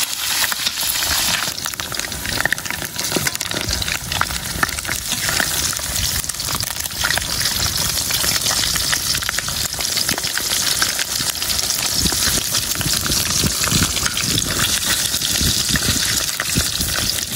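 Pieces of pig udder deep-frying in hot oil in a steel wok: a steady sizzle full of crackles and pops, with a metal ladle stirring through the oil.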